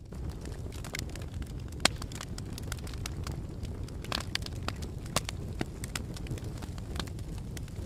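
Campfire burning with a steady low rumble of flames and irregular sharp crackles and pops from the wood, one louder pop about two seconds in.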